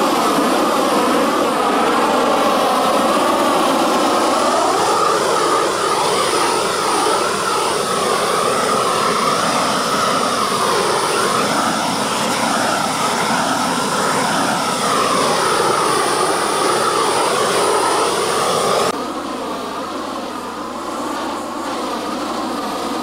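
Propane torch burning with a steady rushing roar as its flame scorches the surface of carved cherry wood to darken it. About three-quarters of the way through the sound drops abruptly to a lower level and carries on.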